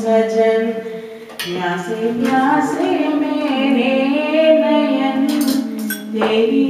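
A woman sings a melody over a steady held drone. There are a few light clicks about five seconds in.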